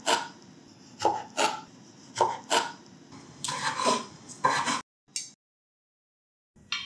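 Kitchen knife slicing pickled gherkins, pickled chillies and small onions on a wooden cutting board: sharp chops in pairs about a second apart, then a quicker run of cuts that stops suddenly about five seconds in.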